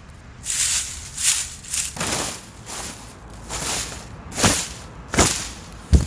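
Dry fallen bamboo leaves rustling and crackling in a series of short bursts, about nine in all, with a dull thump near the end.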